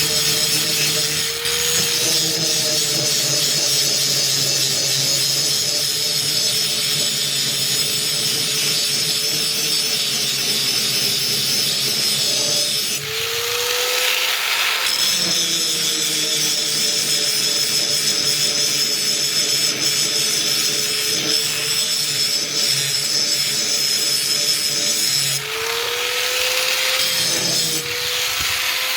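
Power grinder grinding an axe blade: a steady motor whine with a harsh high grinding hiss. Twice, about 13 and 25 seconds in, the blade comes off the wheel, the hiss drops and the motor speeds back up, then slows again as grinding resumes.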